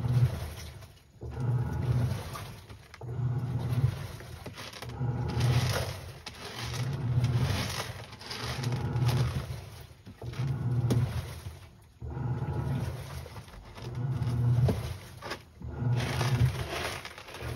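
Cat scratching and digging in pellet litter in a plastic litter box to cover its waste, the pellets scraping and rattling in repeated strokes about once every second or so.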